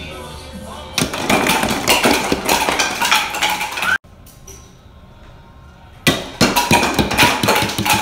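Hollow plastic toy bowling pins knocked down by a rolling ball, clattering and tumbling on a wooden tabletop. There are two bursts of clatter: one starting about a second in, and one after a quieter stretch in the middle.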